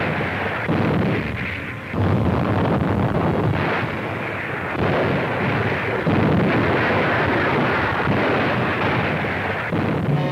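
Aerial bombs exploding: a dense, continuous rumble of blasts, with fresh blasts swelling up at about two, three and a half, five and six seconds in.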